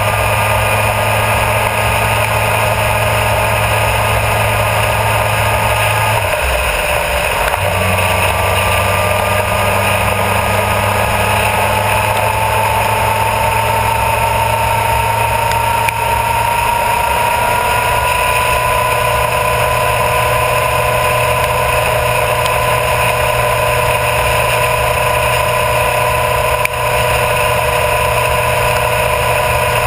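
Honda CBR1000RR Fireblade's inline-four engine running under way on the road, with heavy wind and tyre rush on the microphone. The engine note breaks off briefly about six seconds in, then from about twelve seconds its pitch climbs slowly as the bike gathers speed and holds steady.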